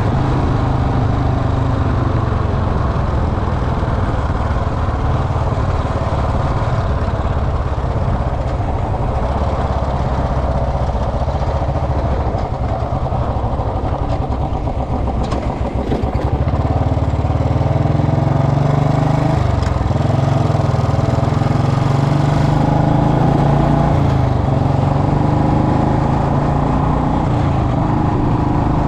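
Royal Enfield Bullet Electra single-cylinder engine running. Its note changes and it grows louder about halfway through.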